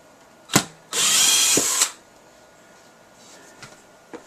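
Cordless drill running in one burst of about a second, driving a wood screw into a wooden board, just after a sharp knock. The screw is not biting, since there is no wood beneath it, which the owner takes as a sign that his screws are too short.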